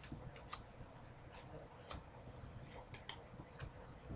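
Faint, irregular soft clicks and flicks of hockey trading cards being handled and flipped through by hand.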